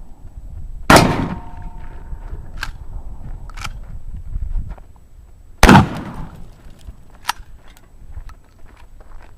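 Benelli Nova pump-action shotgun fired twice, about five seconds apart, each a loud blast with a short echo. A brief metallic ring follows the first shot, and lighter sharp clacks come between and after the shots.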